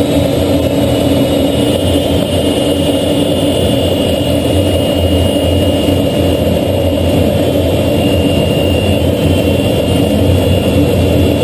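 Jet engine heard from inside the cockpit of a jet aircraft in flight: a loud, steady noise of engine and rushing air, with a thin high turbine whine over a low rumble.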